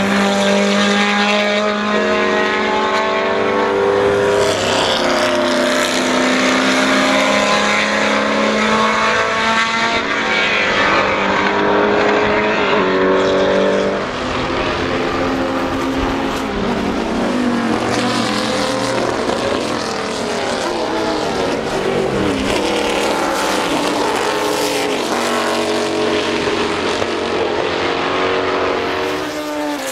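Lola T70 Mk3B race cars' 5-litre Chevrolet V8 engines running hard on track, the pitch climbing and dropping through gear changes. In the second half several cars are heard at once, their engine notes overlapping as they pass.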